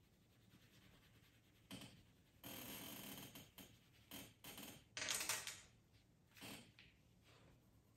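Coloured pencils on paper: several short bursts of scratchy shading strokes, with pencils knocking lightly as one is set down and another picked up, the loudest burst about five seconds in.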